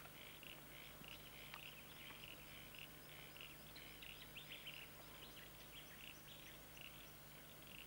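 Faint, steady chirping: short high calls repeating a few times a second, from small wild creatures, over a low steady hum.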